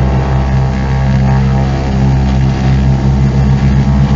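Partenavia P68C's two piston engines running steadily at run-up power of about 2100 RPM, heard from inside the cockpit as a loud, even low hum.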